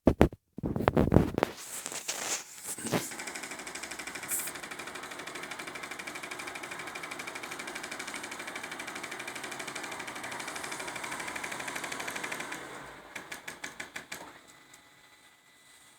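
3D printer running with a fast, even mechanical rattle for about ten seconds, which breaks into a few separate knocks and fades near the end. A few loud clicks come just before the rattle starts.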